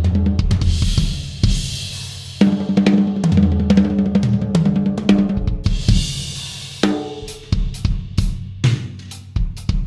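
Yamaha Stage Custom drum kit played: tom fills stepping down in pitch across the toms, with bass drum and cymbal crashes. From about seven seconds in it drops to a sparser beat of separate snare, kick and hi-hat hits.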